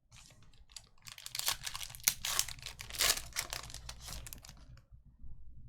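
A trading card pack's foil wrapper being torn open and crinkled, a dense crackling run from about a second in that dies away near the end.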